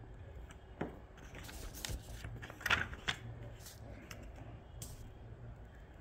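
Paper instruction leaflet handled and shifted by hand: rustling and crinkling with a few sharp crackles, loudest about two and a half seconds in.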